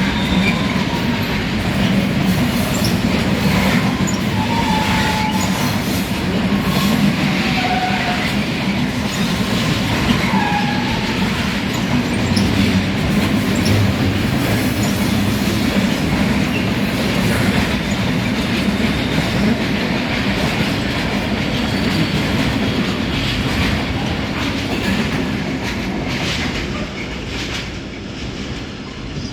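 Intermodal freight train rolling past, its wagon wheels squealing on the rails with wavering high squeals in the first half, over a steady rumble and clickety-clack of wheels on rail joints. The sound eases somewhat near the end.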